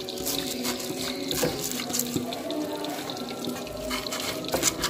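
Stone pestle (ulekan) crushing and grinding chillies and shallots against a clay mortar (cobek), a run of irregular wet scraping and squashing strokes.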